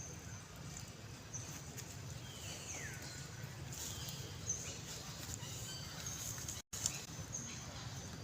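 Animal calls: short high chirps repeating, with one falling call about two and a half seconds in, over a steady low hum.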